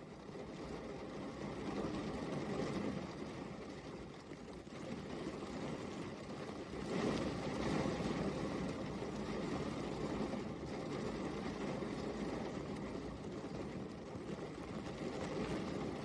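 Steady rain falling, an even wash of noise that grows a little louder about seven seconds in.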